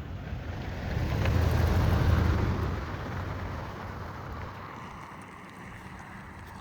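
A road vehicle passes close by on a snowy road: its engine rumble and tyre noise swell about a second in, peak around two seconds, then fade away.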